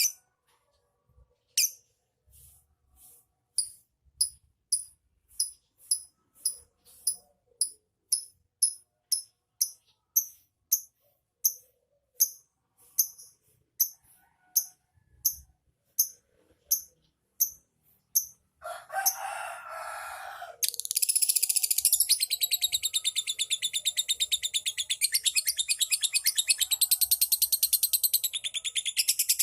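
Lovebird giving short high chirps, about one and a half a second, for most of the first two-thirds. After a short harsh burst it breaks into a long rapid chattering trill, the 'ngekek' song used as a lure to set other lovebirds chattering.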